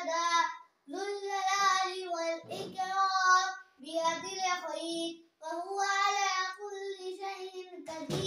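A boy chanting an Islamic recitation in a sustained, melodic voice, in long held phrases with short breaths about a second in, near four seconds and at about five and a half seconds. A brief click near the end.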